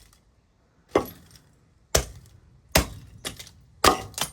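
Four hard blows about a second apart, smashing a burnt-out electronic device, with smaller knocks and bits of broken casing clinking in between.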